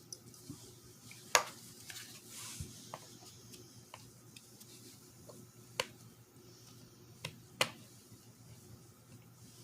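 Scattered hard clicks and clinks of small parts of a car's manual shifter assembly being handled and worked apart. Three sharp knocks stand out, about a second and a half in, near six seconds, and past seven and a half seconds, over a faint steady hum.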